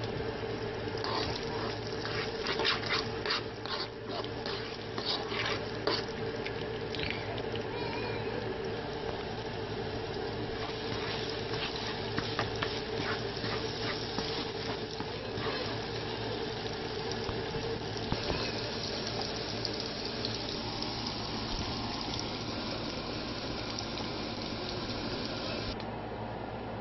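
Egg sizzling in hot oil in a frying pan while a spatula scrapes and taps against the pan, scrambling it. The sizzle drops off sharply near the end.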